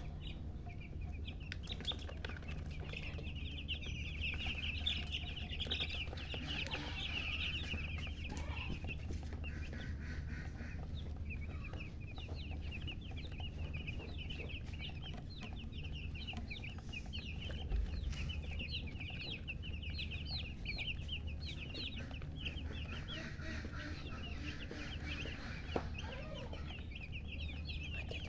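Baby chicks peeping: a dense stream of short, high chirps that thins out briefly twice, with a hen clucking among them. A steady low hum runs underneath.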